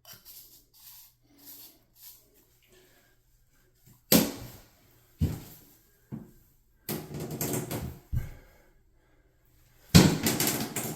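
Hands working on shower plumbing parts: a few faint handling sounds, then a run of sharp knocks and clunks with scraping and rustling between them, the loudest knock near the end.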